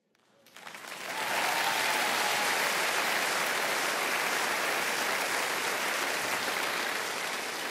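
Large theatre audience applauding, fading in over the first second and then holding steady.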